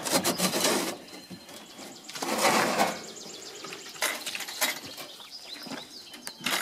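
Chicken treats rustling as they are shaken from a bag and scattered over the coop floor, in two bursts of about a second each, followed by scattered clicks and knocks and a few faint chirps from the young chickens.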